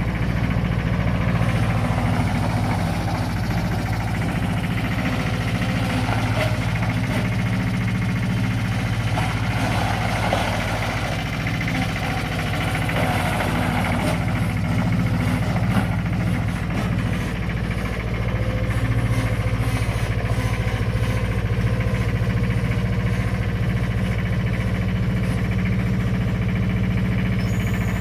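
Bobcat 533 skid steer's engine running steadily.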